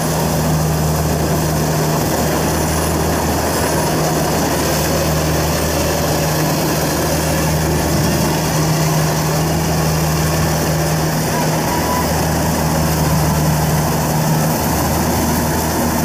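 Kubota Pro688Q combine harvester's diesel engine running steadily at working speed, with a constant low hum, as the machine drives off into the standing rice to cut it.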